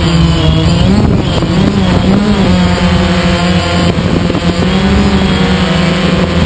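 DJI Phantom quadcopter's motors and propellers buzzing loudly, heard from the drone itself, the pitch wavering up and down as the drone manoeuvres.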